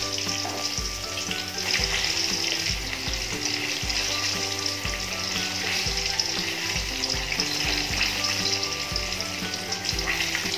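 Battered chicken pieces deep-frying in hot oil, a steady sizzle, under background music with a regular beat.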